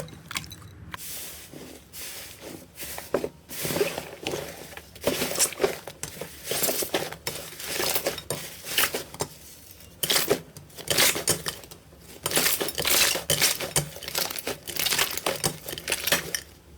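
Slime being squeezed and pressed by hand, crackling and popping in repeated bursts of quick clicks.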